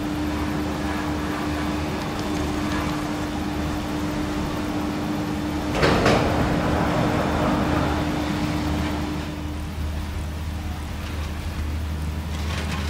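Montaz Mautino detachable gondola lift running, with a steady machinery hum and drone at the station. About six seconds in, a cabin entering the station gives one loud clattering clank that trails off over a couple of seconds.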